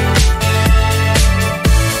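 Upbeat electronic background music with a steady thumping beat, about two beats a second.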